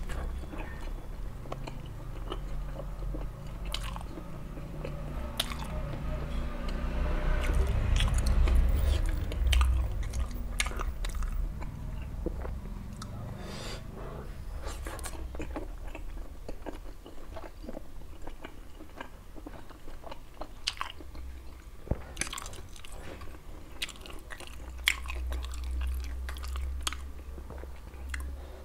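Close-miked chewing and biting of steamed chicken momos and stir-fried instant noodles, with many short wet mouth clicks. A louder low rumble swells about six to ten seconds in.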